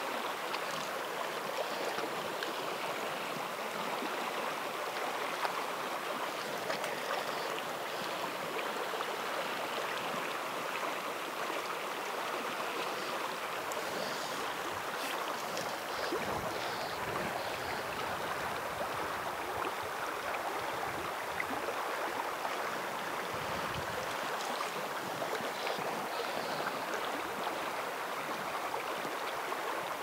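Shallow spring creek flowing fast over weed beds, a steady, even rush of water.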